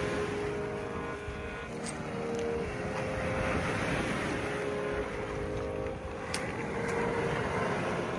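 Surf washing over a pebble beach, a steady rushing with wind on the microphone.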